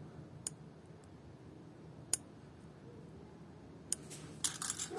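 Small sharp plastic clicks from handling a car door wiring-loom connector and its terminals as they are fitted back in: three spaced clicks, then a quick cluster of clicks near the end, over a faint low hum.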